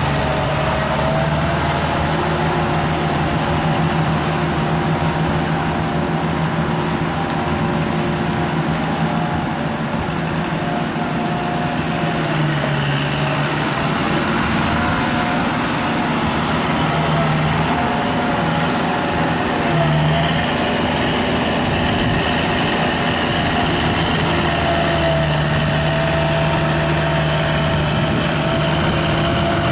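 Kubota tractor's diesel engine running steadily while pulling a rotary tiller, its pitch dipping slightly a few times midway.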